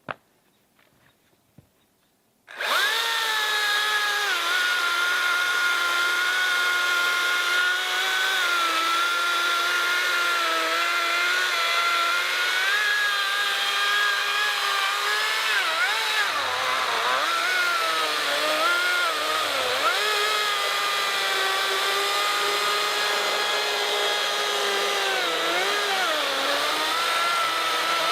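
Makita XCU04 36V cordless chainsaw starting about two and a half seconds in and cutting through a ponderosa pine log. It makes a steady electric motor whine with chain noise, and the pitch dips and wavers as the chain is loaded in the wood, most of all past the middle and again near the end.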